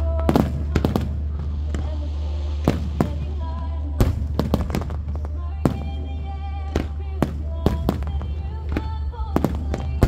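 Fireworks bursting in a rapid series of sharp bangs, over the display's music soundtrack playing loudly.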